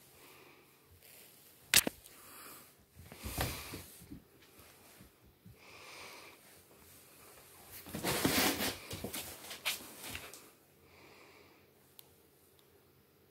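Soft breathing close to the microphone, a few slow breaths spaced seconds apart. There is a sharp click about two seconds in and loud rustling around eight to ten seconds.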